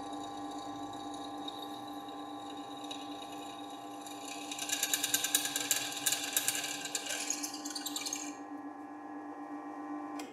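Biltema BD5512 bench drill running at about 600 RPM with a steady motor hum. About four and a half seconds in, the 6 mm twist bit cuts into 2 mm steel plate for about four seconds, a harsh cutting noise over the hum, then it is raised and the drill runs on.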